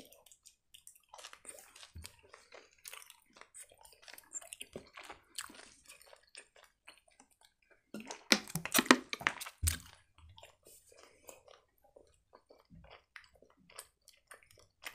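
Close-miked chewing of sugar-coated sour gummy candy, soft sticky mouth clicks. About eight seconds in, a louder spell of drinking water from a plastic bottle with gulps, a thud just after, then the chewing goes on quietly.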